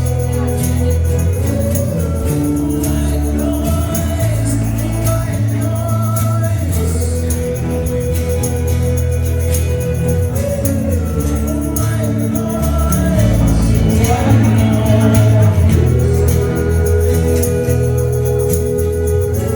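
Live acoustic rock band playing a song, with sung vocal lines held over guitars and a strong bass line. It gets a little louder about two thirds of the way through.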